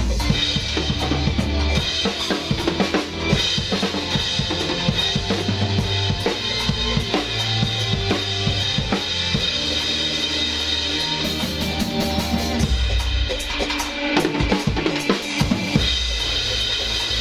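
Acoustic drum kit played at a steady groove, with kick drum, snare and cymbal hits, over a backing track with sustained bass notes.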